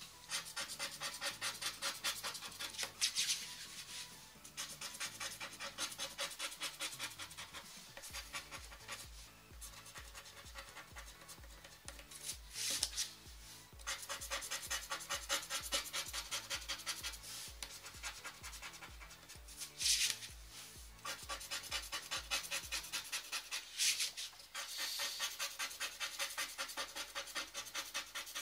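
Lotto Super 7 scratch-off cards being scratched in quick, even back-and-forth strokes, with a few louder scrapes now and then.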